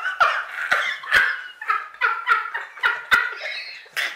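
Two people laughing hard in short, breathless bursts, two or three a second, with a few sharp knocks among the laughs.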